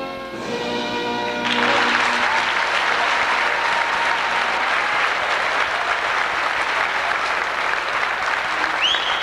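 The last sustained chords of the national anthem end about a second and a half in. Then the crowd in the hall breaks into loud, steady applause and cheering.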